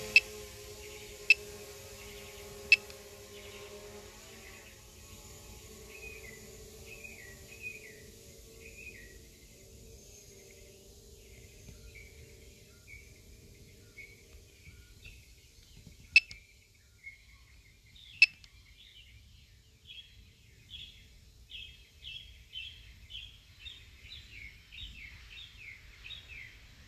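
DJI Mavic Pro drone's propeller hum, a steady cluster of tones, fading out over the first few seconds as the drone climbs away. Songbirds then chirp in quick repeated short notes that come thicker toward the end. A few sharp, loud clicks fall through it, three near the start and two about midway.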